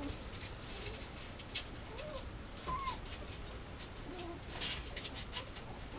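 A mame shiba (miniature Shiba Inu) puppy giving a few faint, short whimpers, with soft clicks and rustles as it mouths a plush toy.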